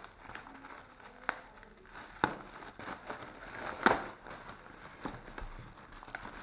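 Paper wrapping being pulled off a packaged product, crinkling and rustling with a few sharper crackles.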